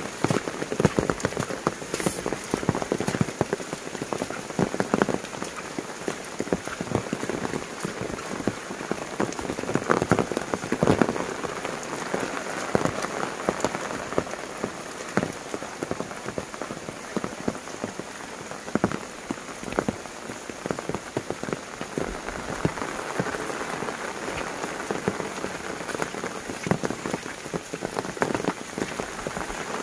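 Heavy rain falling on foliage and wet ground: a steady hiss with many sharp taps of nearby drops.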